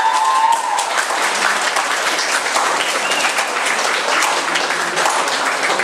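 An audience applauding: many hands clapping together, steady throughout.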